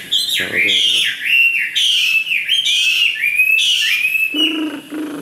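Chinese hwamei singing loudly: a rapid, continuous run of whistled notes sliding up and down, stopping about four seconds in.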